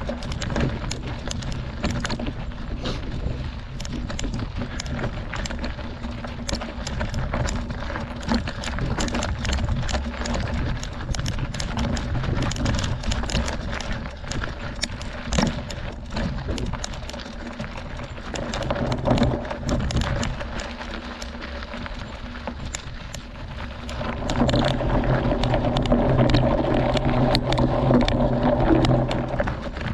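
Mountain bike riding on a loose gravel road, its tyres crunching over stones and the bike rattling with frequent clicks. The sound grows louder for several seconds near the end.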